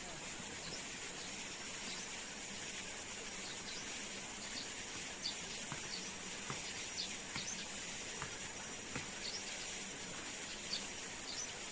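Forest ambience: a steady high insect drone over an even rushing background, with short bird chirps scattered throughout.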